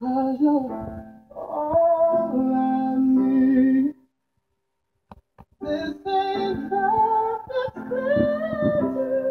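Music with a sung melody that breaks off about four seconds in, with a few clicks in the gap, and starts again a second and a half later.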